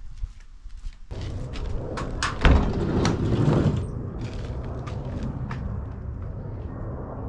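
A car door shutting with a loud thump, over the steady low rumble of a car engine running.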